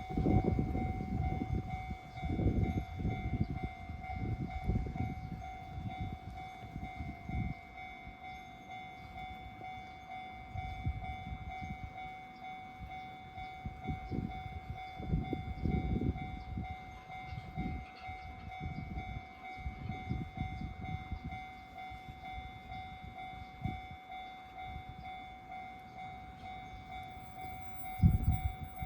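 Japanese level-crossing warning signal ringing steadily, over the low rumble of a passing train that is heaviest in the first several seconds, with a sharp low thump near the end.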